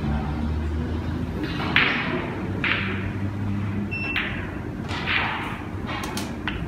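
Snooker balls being struck and potted: a series of sharp clicks and knocks, about five in all, each with a brief fading tail.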